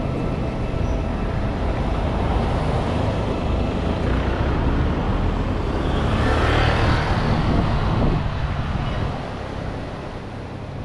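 A motor scooter passing close by: its engine and road noise swell to a peak six to eight seconds in, then fade, over a steady low traffic rumble.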